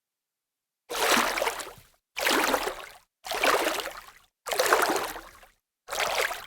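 Water splashing: five separate splashes, each starting suddenly and fading away over about a second, with dead silence between them.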